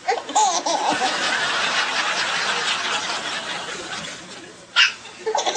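Breathy laughter for about four seconds, then a single sharp baby hiccup near the end.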